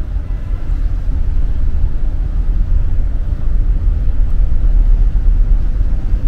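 Wind buffeting the microphone on the open deck of a car ferry: a loud, gusting, fluttering low rumble with no steady tone.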